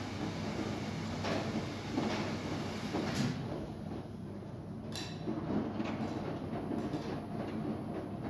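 Front-loading commercial washing machine running with a steady low rumble and hum, with a few sharp clicks and knocks scattered through.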